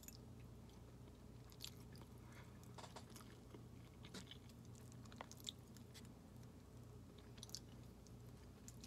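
Faint chewing of spicy instant noodles, with scattered small clicks and wet mouth smacks, over a low steady hum.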